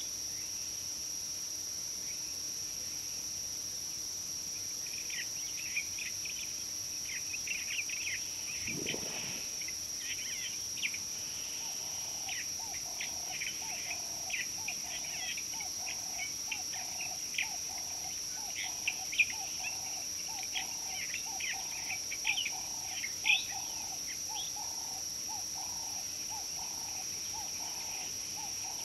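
Wild birds chirping in short, scattered calls over a steady high-pitched drone. From about twelve seconds in, a lower call repeats about one and a half times a second, and a single low downward sweep sounds around nine seconds in.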